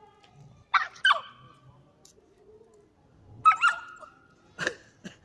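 A puppy yelping in short, high squealing cries, four or so in a row, while an adult dog wrestles it down in rough play.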